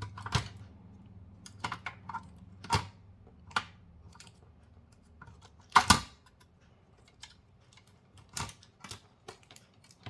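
Irregular clicks and knocks of a screwdriver and plastic and metal parts being handled while taking apart a computer monitor, with one louder knock about six seconds in.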